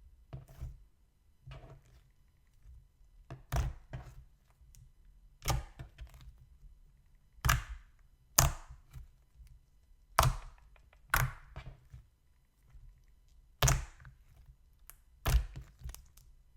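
Slime being pressed and stretched by hand, giving a string of sharp clicking pops about once a second, with the loudest pop about eight seconds in.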